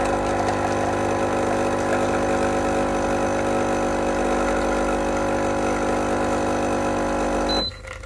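Sunbeam Compact Barista espresso machine's vibration pump humming steadily while it pulls a double espresso shot, cutting off suddenly near the end as the programmed shot finishes.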